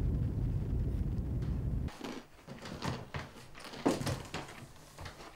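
Low, steady road rumble inside a moving car's cabin, cut off abruptly about two seconds in. After it, a quiet room with a few soft knocks and rustles, the sharpest near the four-second mark.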